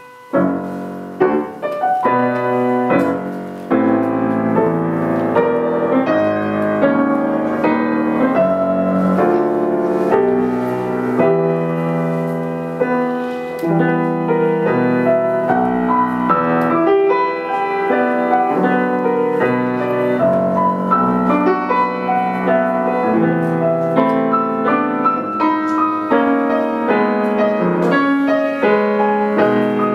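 Solo Bösendorfer grand piano. In the first few seconds a few separate chords are struck and left to ring, then about four seconds in it moves into continuous fast playing of many notes.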